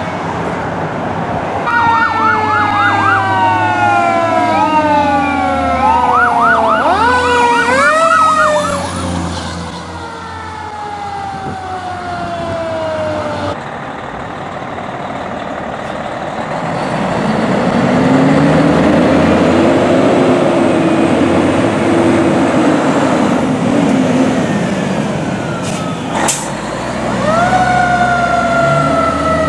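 Fire engines responding under sirens, over truck engine noise. Electronic sirens sweep down and then yelp rapidly in the first third. Later a deep siren wail rises and falls slowly, and near the end a higher wail winds up and holds.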